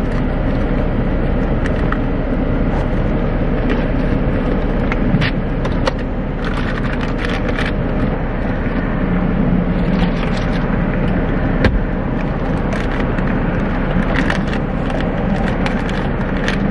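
Steady hum of a parked car idling, heard from inside the cabin, with scattered clicks and rustling of things being handled from about five seconds in.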